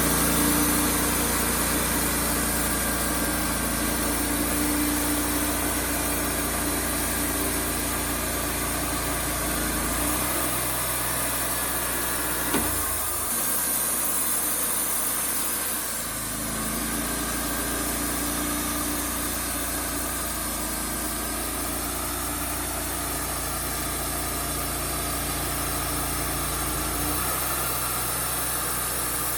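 Wood-Mizer LT35HD sawmill running, its engine note steady, shifting a little past ten seconds in, settling back about sixteen seconds in, and shifting again near the end; a single sharp click near the middle.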